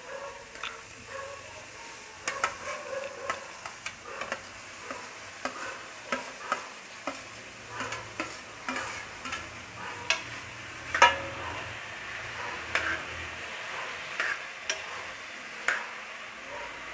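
Chopped mixed vegetables frying in oil in a pressure cooker, with a steady sizzle, while a steel spoon stirs them, scraping and clinking irregularly against the pot. The loudest clank comes about eleven seconds in.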